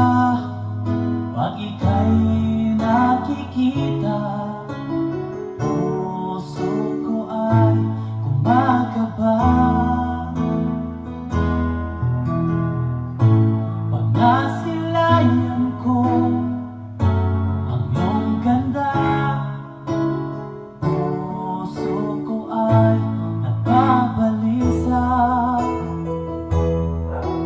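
A song with singing over keyboard and guitar and a heavy bass line that changes note every second or two, played through the loudspeakers under test, a CV 15-inch driver and a MIDHI 12S8 driver.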